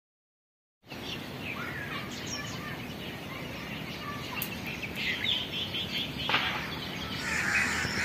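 Wild birds chirping and calling over a steady outdoor background hiss, starting about a second in, with the calls growing busier near the end.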